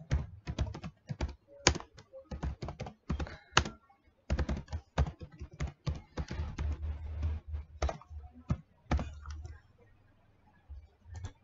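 Typing on a computer keyboard: quick key clicks in irregular runs, stopping near the end.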